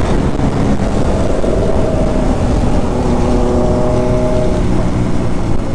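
Motorcycle engine and exhaust running under way, a steady engine note with a slight rise in pitch partway through, described as a really fierce exhaust sound.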